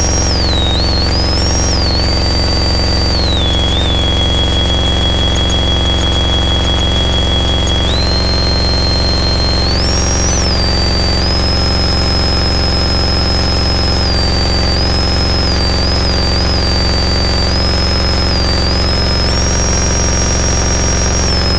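Harsh noise wall: a dense, unchanging wall of distorted noise, heaviest in the low end, with a high tone above it that slides and steps up and down in pitch.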